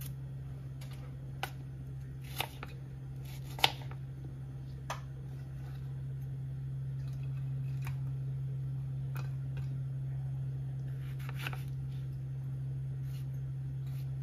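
Kitchen knife cutting tomatoes on a wooden chopping board: a scattering of short, sharp knocks of the blade on the board, the loudest a few seconds in, over a steady low hum.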